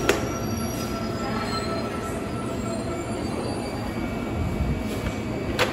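Busan-Gimhae Light Rail train running at the station platform: a steady noise of the train in motion, with a sharp click just after the start and another near the end.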